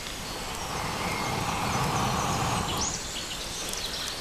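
A person blowing a long breath onto the embers of a small wood fire to revive the flames; the blowing swells for about two and a half seconds, then fades. A bird chirps faintly.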